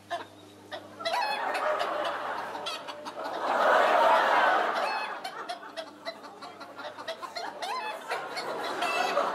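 Studio audience laughing, swelling to its loudest about four seconds in, with a large rooster clucking at moments.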